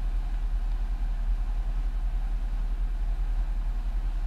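Street ambience in heavy rain: a steady hiss of rain on a wet road, with passing traffic and a constant low rumble.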